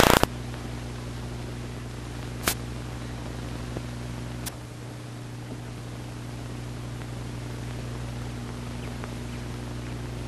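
Steady low electrical hum under a constant hiss, with two short sharp clicks about two and a half and four and a half seconds in.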